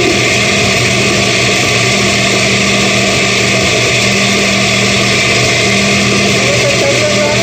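Kitchen blender motor running steadily at one speed, blending a thick mix of red onion, lemon, ginger and radish with a splash of water.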